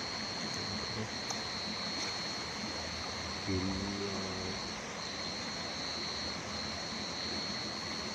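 Steady rushing of river water, with a continuous high-pitched whine that breaks off briefly a few times, and a short faint voice about halfway through.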